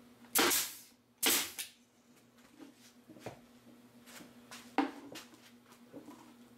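Pneumatic stapler firing twice about a second apart into a wooden hive frame, each shot a sharp bang that trails off briefly. A few lighter knocks of wood and tools being handled follow.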